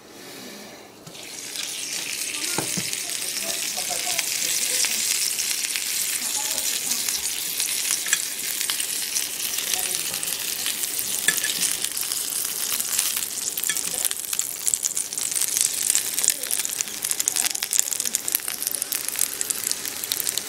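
Butter sizzling and crackling in a pan of Dampfnudeln once the water has cooked off and the butter is caramelizing the dough balls' undersides. The sizzle jumps up about a second in as the lid comes off, and the crackles grow denser toward the end.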